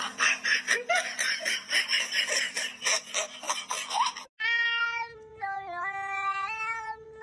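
Cat meowing: short meows over a busy crackling noise, then, after a cut about four seconds in, one long drawn-out yowl held for about three seconds that steps slightly down and back up in pitch.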